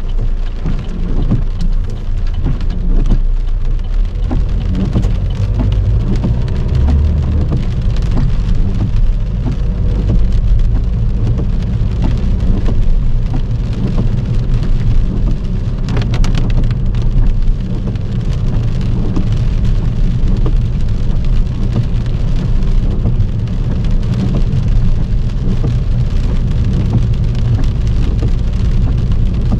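Heavy rain drumming on a car's body and windscreen, dense and steady, over a continuous low rumble. A brief flurry of sharper taps comes about sixteen seconds in.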